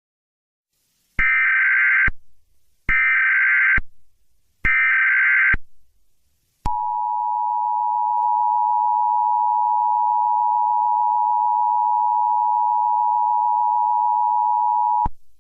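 Emergency Alert System (EAS) opening: three short bursts of screeching digital SAME header data, each just under a second, followed by the two-tone EAS attention signal held steady for about eight seconds, which cuts off suddenly.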